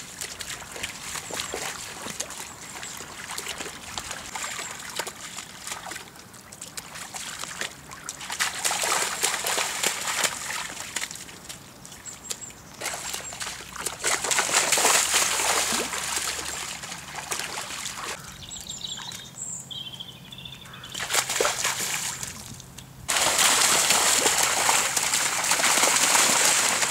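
Lion cubs splashing and sloshing as they run and tumble through shallow flood water, in several bouts. The splashing is loudest and most continuous over the last few seconds.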